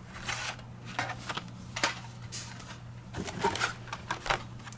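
Carded Hot Wheels die-cast cars being handled: the cardboard-and-plastic blister packs rustle and click against each other in short irregular bursts, over a steady low hum.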